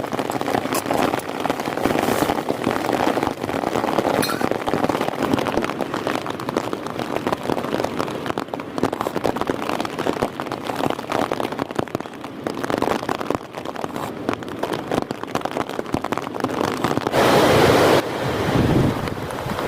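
Heavy rain falling in a dense, steady patter, with strong wind. Near the end there is a louder rush lasting about a second that starts and stops suddenly.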